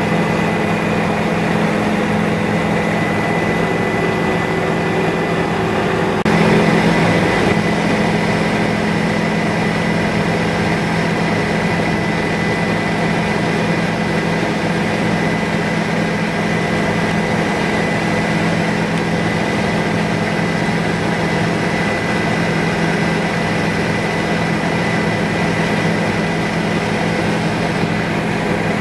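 Helicopter cabin noise: the steady drone of the engine and rotor, with a thin high whine running over it. About six seconds in, the sound steps up a little louder and brighter.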